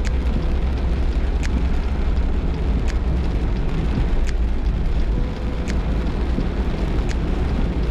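Car driving through a heavy downpour: a steady rush of rain and wet tyres over a low road rumble. Windshield wipers sweep about every second and a half.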